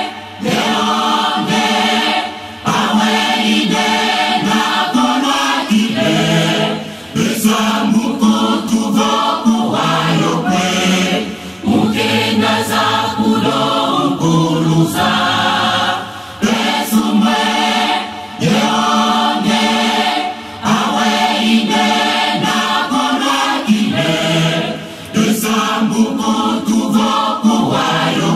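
Mixed church choir singing a hymn in phrases, with short breaks between phrases every few seconds.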